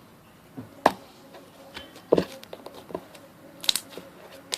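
Blue fluffy slime being stretched and pressed by hand to make a bubble, giving about four sharp popping clicks with softer squelches between them.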